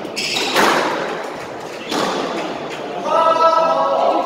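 Squash ball hits: sharp smacks of racket on ball and ball off the court walls, the loudest about half a second in, with another near two seconds. Near the end comes a held pitched sound lasting about a second.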